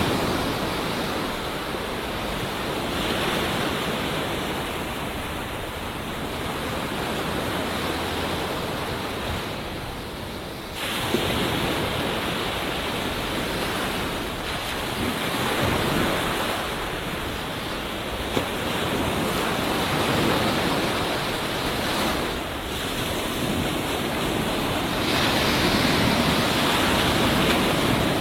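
Ocean surf breaking on a beach: a continuous rush of white water that swells and eases with each wave, with a sudden surge about eleven seconds in.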